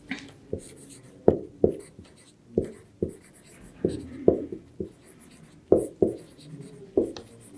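Marker pen writing on a whiteboard: a run of short, sharp strokes and taps at an uneven pace as letters are written.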